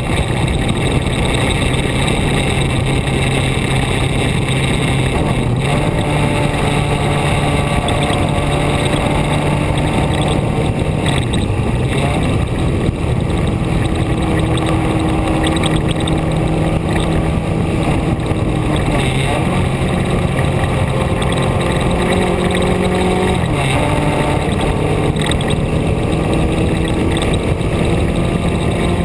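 A vehicle's engine running while driving, its note stepping up and down a few times, over a steady rush of wind and road noise.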